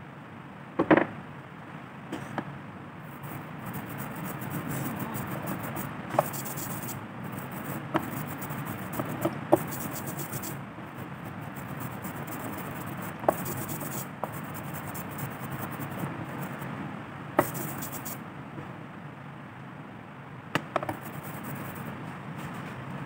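Rubber brayer rolling through tacky printing ink and over a carved woodblock, giving a steady sticky rubbing sound, with several sharp knocks along the way.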